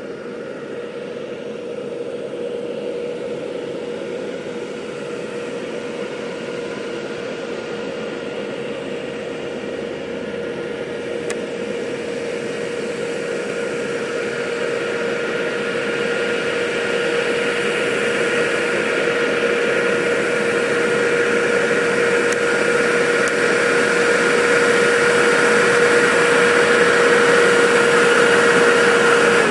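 Diesel semi-truck hauling an oversize load on the highway, its engine and tyres growing steadily louder as it approaches, with a steady hum running underneath.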